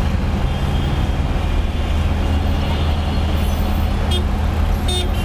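Dense road traffic at a busy city intersection: buses, cars and taxis running with a steady low engine drone. Two short high-pitched sounds come near the end.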